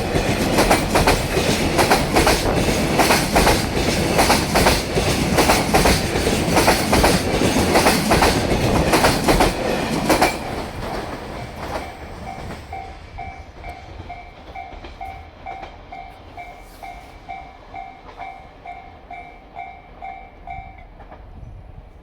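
Koki container wagons of a freight train clattering loudly over rail joints, a dense clickety-clack. About ten seconds in, the last wagon passes and the clatter falls away, leaving a Japanese level-crossing warning bell ringing about twice a second, which stops near the end.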